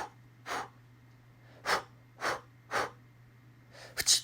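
A series of short, sharp breaths from a person, made as homemade foley: two, then three about half a second apart, then a quick cluster of three near the end.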